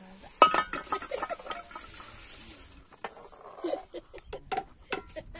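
A run of sharp clinks and knocks of a utensil against cookware, the loudest about half a second in, with chickens clucking briefly in the second half.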